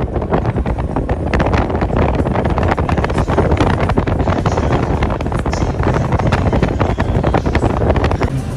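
Wind buffeting the microphone in heavy, uneven gusts, over the low rumble of a moving vehicle.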